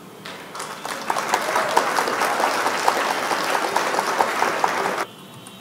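Crowd applause sound effect: many hands clapping, swelling in within the first second and cutting off abruptly about five seconds in, played as the quiz answer is revealed.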